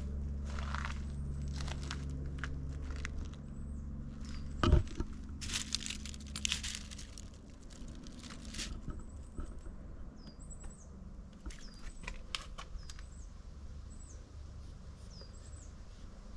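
Outdoor ambience: a bird gives short, high, falling chirps again and again, over a low hum that fades out about three seconds in. A sharp knock about five seconds in is the loudest sound, followed by a few seconds of rustling and crunching.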